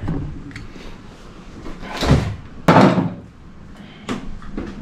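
Upper door of a double-door refrigerator being pulled open: two noisy bumps about two seconds in, the second starting sharply, then a short knock near the end.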